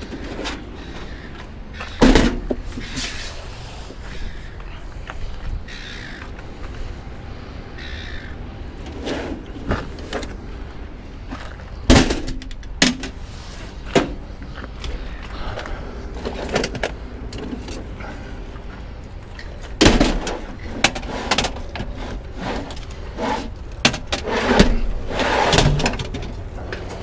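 Scattered thuds and clunks of used computer equipment and screens being handled and set down, a few sharp knocks spread out over a steady low background rumble.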